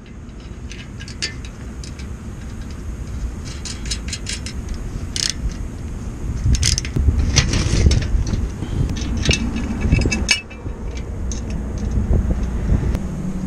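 Steel brackets and bolts of an adjustable roof curb clinking and knocking as they are fitted together by hand, over a low wind rumble on the microphone.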